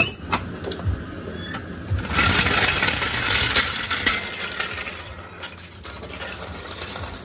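A car jack being let down to lower the car: a few sharp metallic clicks at first, then about three seconds of loud, dense rattling noise that fades away.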